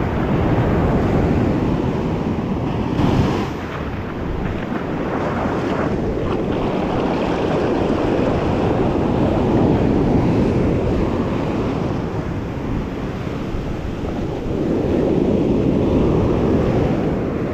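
Surf washing up the beach, swelling and falling back a few times, with wind buffeting the microphone.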